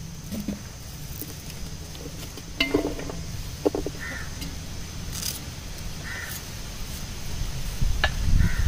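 A small knife slicing boiled palmyra sprouts into a steel bowl, with faint clicks, over a low steady rumble. Short animal calls sound in the background several times.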